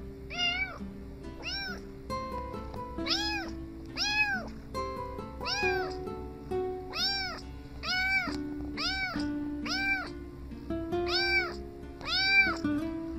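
Tabby kitten meowing over and over, about one short meow a second, each rising then falling in pitch, with background music underneath.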